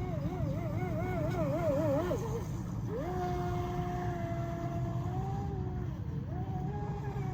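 Brushless motor of an RC speedboat whining. Its pitch wobbles quickly up and down as the throttle is pulsed, then holds steady for a couple of seconds at speed, and falls and rises again near the end, over a low steady rumble.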